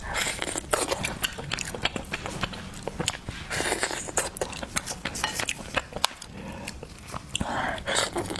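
Close-miked mouth sounds of eating: wet chewing, lip smacks and sucking, with many sharp clicks coming in clusters.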